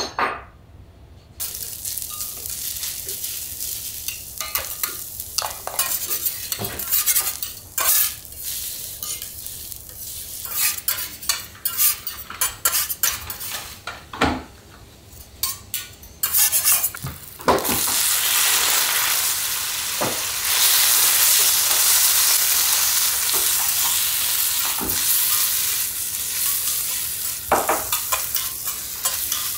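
Abalone sautéing on a teppanyaki griddle: steady sizzling, broken by many sharp clicks and scrapes of metal utensils against the hot plate. A little over halfway through, the sizzle suddenly gets louder and stays loud.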